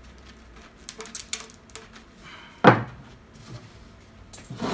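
PVC pipe and fittings knocking and clicking as a 3/4-inch (20A) pipe is handled and pushed into an elbow fitting, with a cluster of light clicks about a second in and one louder clunk about two and a half seconds in.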